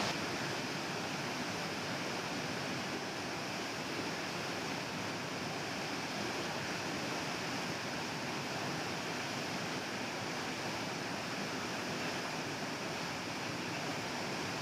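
Steady rush of a river flowing, an even wash of water noise with no breaks.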